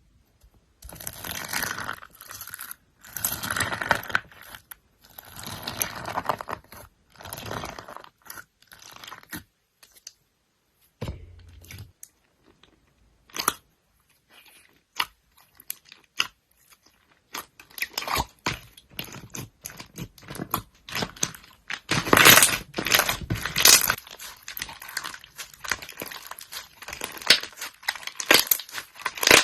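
Slime being squeezed and pressed by hand, giving bursts of many small sharp clicks and pops. The clicking thins out about a third of the way through, then grows denser and louder in the last third.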